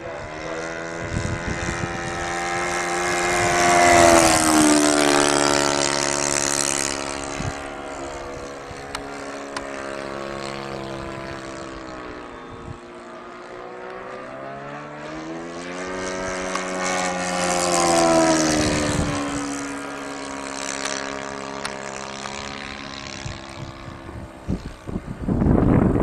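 A propeller aircraft's engine flying past twice. Each time it grows louder and its pitch drops as it passes closest, about four seconds in and again about eighteen seconds in, and it is quieter in between. Near the end there are loud noisy bursts on the microphone.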